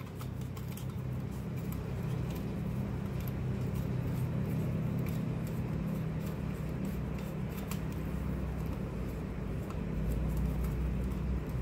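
A steady low mechanical hum, with faint light clicks of metal fittings being handled and turned by hand.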